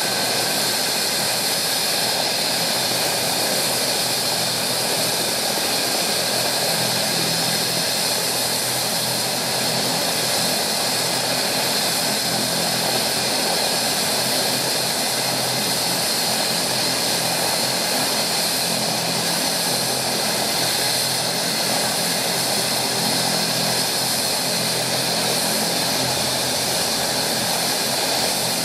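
Bell 427 helicopter's twin turboshaft engines running on the ground during startup with the main rotor turning: a steady high turbine whine over a broad rushing noise, with no rise or fall in loudness.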